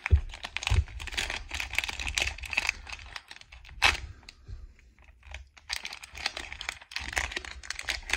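A trading-card pack wrapper crinkling and being torn open by hand, a dense run of crackles with one sharp loud crackle about four seconds in and a brief lull after it.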